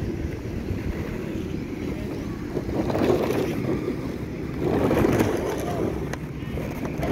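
Muffled rumbling handling noise from a phone microphone being jostled and brushed against clothing in a tight crowd, with two louder swells about three and five seconds in.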